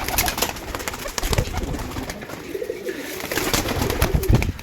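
Domestic pigeons cooing, mixed with many short clicks and rustling from the birds moving about.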